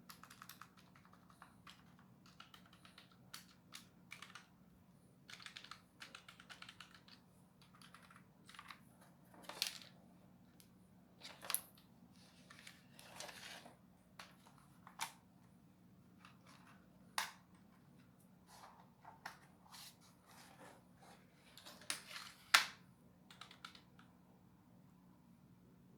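Typing on a cheap Quantum wired keyboard: irregular runs of key clatter with a few louder single clicks, the loudest near the end, over a faint steady hum.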